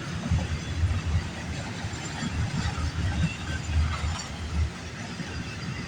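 CN freight train's cars rolling past on the rails: an uneven low rumble of wheels on track, with a few faint high-pitched wheel squeals.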